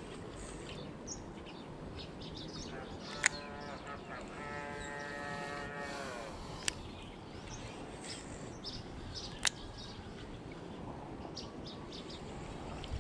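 A cow mooing once, one long call of about two and a half seconds that drops in pitch at the end, with birds chirping and a few sharp clicks.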